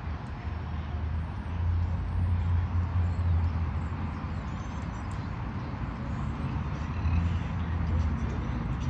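Steady low rumble of distant road traffic, swelling a little now and then.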